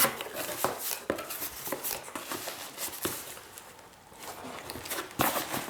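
A cardboard shipping box being opened and its packed contents handled: scattered light clicks and rustles, with a sharper knock near the end.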